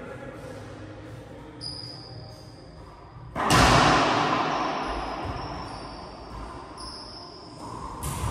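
Racquetball being played in an enclosed court: a sudden loud bang about three and a half seconds in, echoing off the walls and dying away over a few seconds, with a softer knock near the end.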